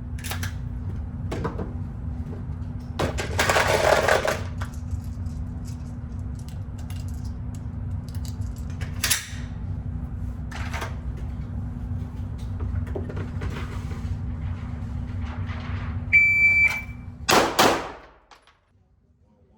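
Shot timer giving its start beep, a single high steady tone, followed about a second later by loud pistol fire from a draw. A steady low hum of the range runs underneath, with scattered clicks and a rustle early on.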